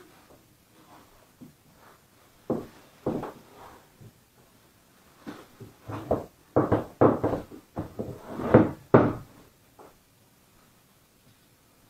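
Motorcycle seat with a vinyl cover being handled on a wooden floor: a series of knocks and rubbing thumps as the cover is pulled over and the seat is turned. Two come a few seconds in, and a quick run of louder ones falls between about five and nine seconds in.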